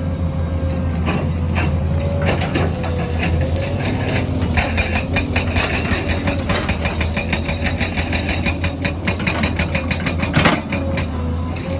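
Excavator's diesel engine running steadily with a faint wavering whine. Midway a fast, even run of clicks or rattles starts, and a single sharp knock comes near the end.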